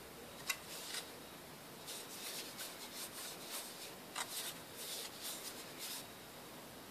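Laptop hard drive and its plastic and metal parts being handled: a sharp click, then a run of short scraping and rubbing sounds with another click partway through.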